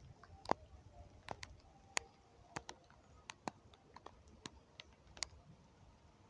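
Faint, irregular sharp clicks and ticks, about two a second, over a low rumble.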